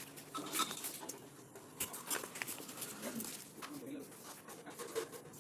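Packaging and craft items being handled: scattered sharp clicks and rustles, with a few short low pitched sounds in the second half.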